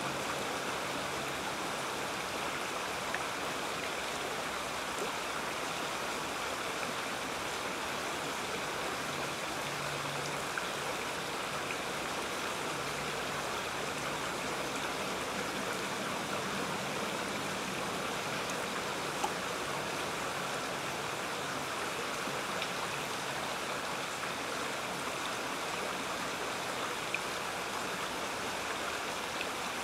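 Creek water running steadily over a shallow riffle.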